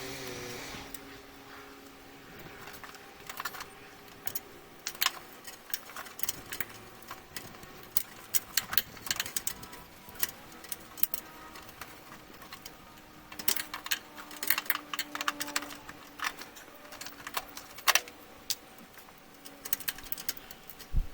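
Spark plug wires being worked off a Chevy 4.3 L V6 by hand: scattered sharp clicks and light rattles as the boots and wires are tugged loose, in clusters with short pauses between.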